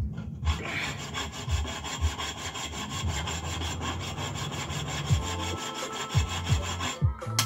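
Hand saw cutting into a steel lawn mower blade clamped in a vise, in steady back-and-forth strokes about two a second; the strokes stop near the end.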